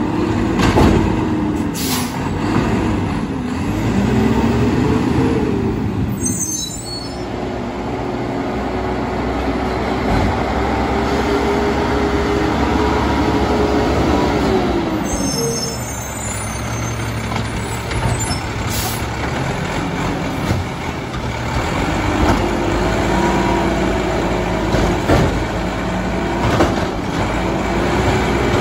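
Mack LEU garbage truck's diesel engine revving hard to drive the hydraulics of a McNeilus side-loader arm as it lifts and dumps carts. The revs rise and fall in several surges, hold steady for several seconds in the middle, then surge again near the end. Air brakes hiss briefly twice.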